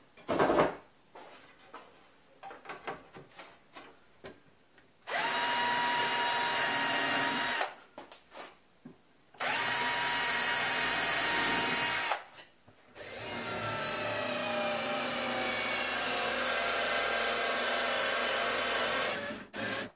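Cordless drill running in three bursts, the first two about two and a half seconds each with a steady whine, the last about six seconds with the whine slowly falling in pitch as the bit bores into the wooden frame, cutting a cavity for a screw head to hang it by. A short loud knock and a few small clicks come before the drilling.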